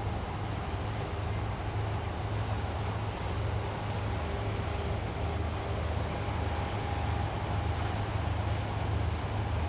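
Diesel engines of a Rhine push convoy passing on the river: a steady low drone with a faint, even hum above it.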